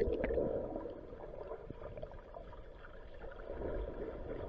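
Muffled rushing and gurgling of sea water heard with the microphone underwater, dull and low with almost no treble.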